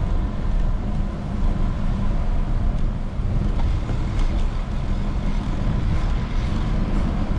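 Steady low rumble of street traffic heard from a moving bicycle.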